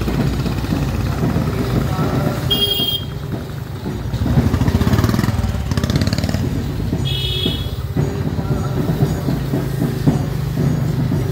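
Street traffic: motor vehicles running close by with a steady low hum, among them a battery e-rickshaw passing. Two short high-pitched beeps sound about two and a half and seven seconds in.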